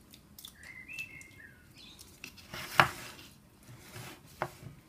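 Wooden spatula spreading crushed tomatoes over a raw pastry base in a tart tin: soft wet scraping and a few light taps against the tin, the sharpest about three seconds in. A few high chirps come near the start.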